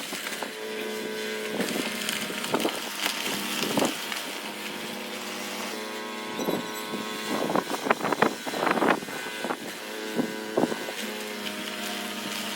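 Snowblower engine running steadily while clearing drifted snow, with short louder bursts of noise several times, the loudest cluster about eight seconds in.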